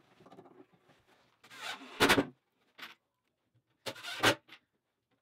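Cordless drill/driver running screws into plywood in two short bursts, about two seconds in and about four seconds in, with small clicks between.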